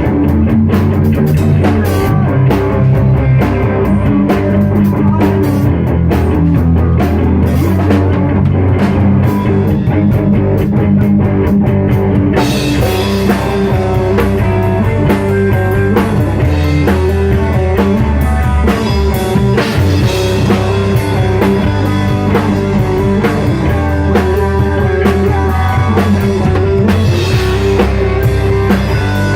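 Rock music with drum kit, bass and guitar, playing steadily; the sound turns brighter and fuller about twelve seconds in.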